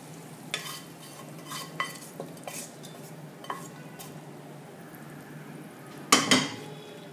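Metal spoon scraping and tapping the last of a spiced oil tempering out of a small steel pan into a large aluminium pot of dal, in short scattered clinks and scrapes. A louder clatter of metal comes about six seconds in.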